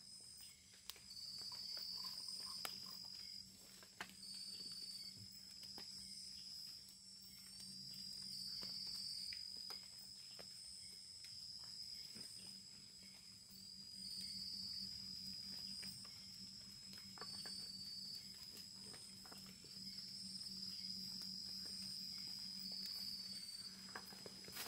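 Insects calling: a steady high-pitched trill, with shorter trills from a second insect repeating every two to three seconds, and scattered faint clicks.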